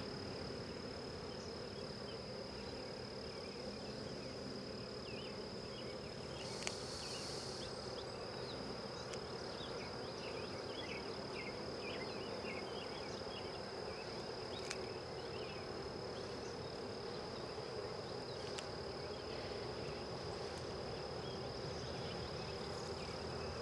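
Honey bees buzzing around an open hive, a steady, dense hum, with a steady high-pitched tone above it. A brief hiss sounds about seven seconds in.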